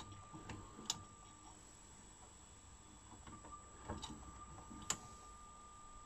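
Sony SLV-EZ735AZ VHS deck's mechanism clicking as it changes modes to wind the tape back, with sharp clicks about a second in and again about four and five seconds in. Its picture sound is cut and a faint steady whine runs underneath.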